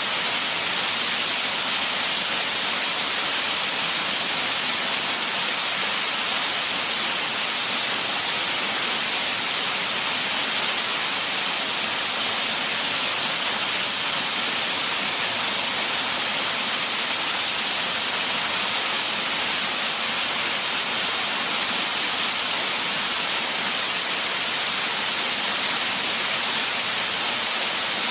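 Waterfall: a steady rush of falling water that never lets up, mostly a bright hiss with little low rumble.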